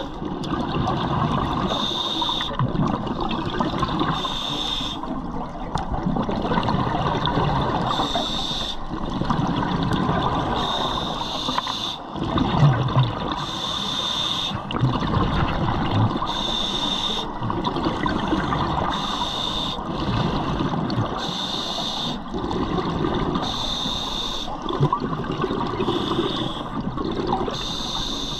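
Scuba diver breathing through a regulator underwater: a short hiss with a faint whistle about every two to three seconds, with gurgling exhaust bubbles in between.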